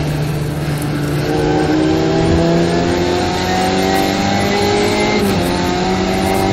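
Onboard sound of a 1972 Winkelmann Formula Ford's 1.6-litre Ford Kent four-cylinder engine at full throttle, climbing steadily in pitch as it pulls through a gear, then dropping sharply with an upshift about five seconds in before pulling again.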